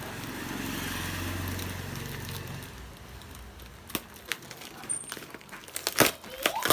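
Parcel packaging being opened by hand: plastic wrapping crinkling and rustling, then a run of sharp clicks and snaps over the last few seconds.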